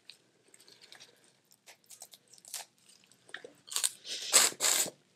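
Boiled crawfish being peeled and eaten close to the microphone: small shell cracks and chewing, with a few louder crunches near the end.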